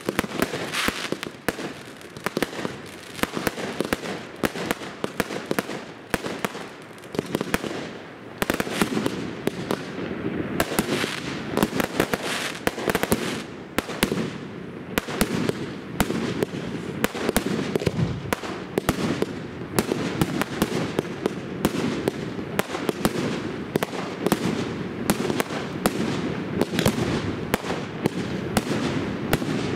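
Fireworks display firing a rapid, continuous volley of shells and comets, dozens of bangs and launch thuds following one another with hardly a pause.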